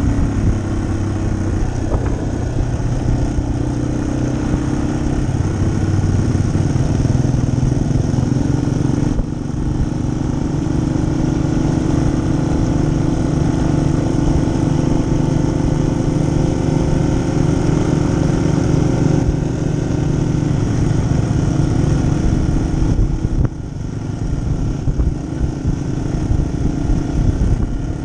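Yamaha XT250's air-cooled single-cylinder four-stroke engine running steadily under way on a dirt trail, with the note dropping briefly about a third of the way in and again near the end.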